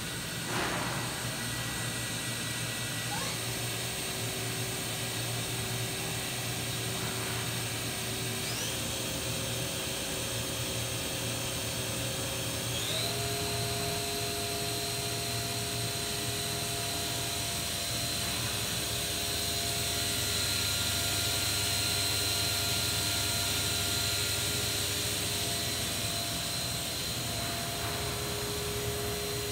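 Spindle of a Bridgeport VMC 1000 vertical machining center running with a steady whine that steps up in pitch three times, each step a short upward glide, as the spindle speed is raised. A brief falling sweep is heard about half a second in.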